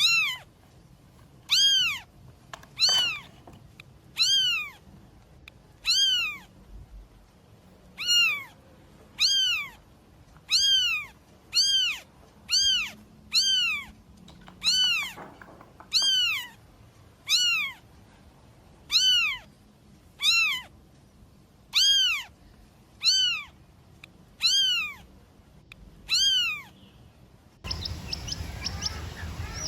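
Domestic cat meowing over and over, some two dozen meows about a second apart, each rising then falling in pitch. A steadier, noisier sound takes over near the end.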